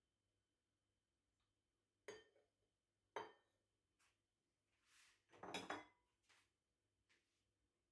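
White ceramic bowls being handled and set down on a wooden worktop. There is a sharp knock about two seconds in and another a second later, then a louder cluster of clinks and knocks around five to six seconds, with a few light taps after.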